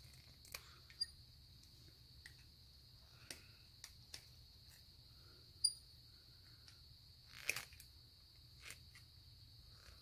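A scattering of sharp clicks and light knocks from copper coax cable being worked and stripped by hand, the sharpest a little past halfway and a short cluster about three-quarters through. A steady high insect chirring runs underneath.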